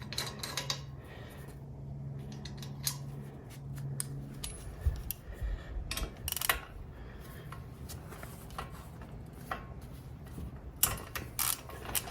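Hand tools and metal parts clinking and tapping now and then, with a flurry of clinks near the end, over a low steady hum that stops about four and a half seconds in.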